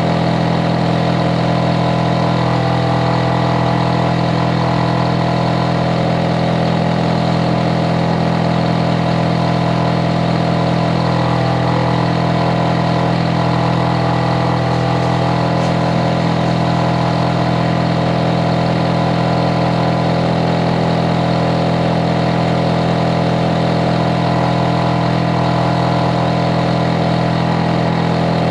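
Hitachi air-conditioner outdoor unit running loudly and steadily: a constant hum with many steady tones from its compressor and fan.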